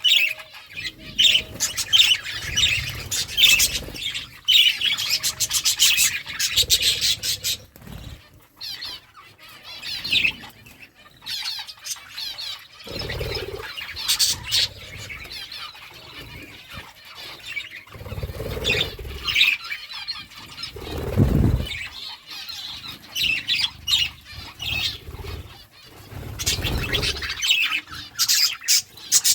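Budgerigars chirping and chattering in a steady stream of quick, high warbles, with a few low thumps along the way.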